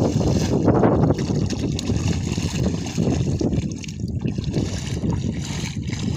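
Wind rumbling on the microphone over the splashing and sloshing of shallow muddy water as a man wades and gropes in it with his hands.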